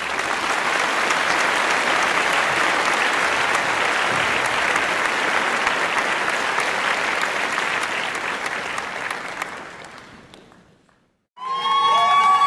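A crowd applauding steadily, fading out about ten seconds in. After a short silence, near the end, a loud steady plastic horn tone starts over cheering voices.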